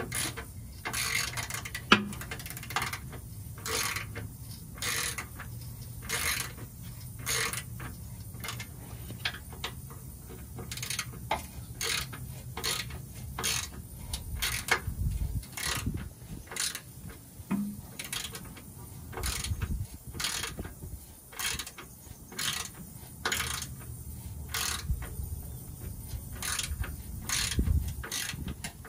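Hand ratchet wrench clicking in repeated short strokes, a little more than one a second, as a skid plate bolt is worked loose. There is one sharper knock about two seconds in.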